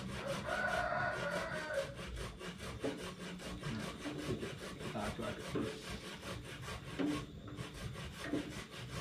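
A ladle scraping around the bottom of a small metal saucepan in quick, repeated stirring strokes.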